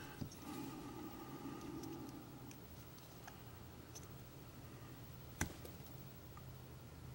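Faint small clicks and light taps of small parts being handled on a workbench, over a steady low hum. One sharp click about five and a half seconds in is the loudest.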